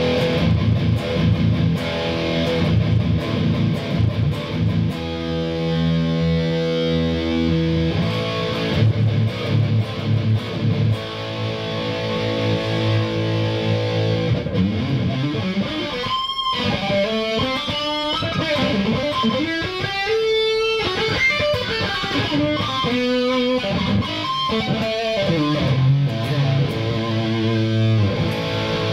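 Electric guitar played through an EGO TM2 overdrive pedal, giving an overdriven amp tone. Chords and riffs come first, with one chord held for a few seconds about five seconds in. From about halfway there are single-note lead lines with string bends and vibrato.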